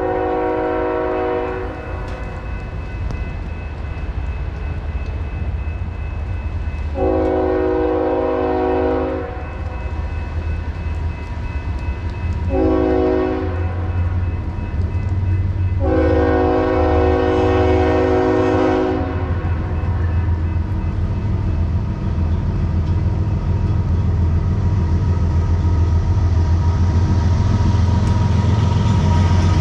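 Nathan Airchime K5HL horn on an approaching BNSF GE ES44C4 diesel locomotive sounding four blasts, long, long, short, long: the grade-crossing signal. Under the horn, the locomotive's low engine rumble grows louder as it draws near.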